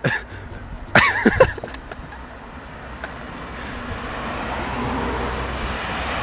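Road traffic approaching: cars driving closer along the road, their tyre and engine noise growing steadily louder. A brief voice sounds about a second in.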